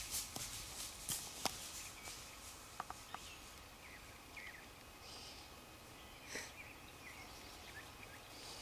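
Faint woodland ambience with a few small clicks in the first second or two, scattered faint bird chirps, and a short soft rustle about six seconds in.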